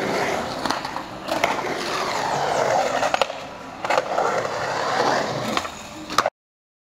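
Skateboard wheels rolling through a mini ramp's transitions, a steady rolling rumble broken by several sharp clacks of the board. The sound cuts off suddenly near the end.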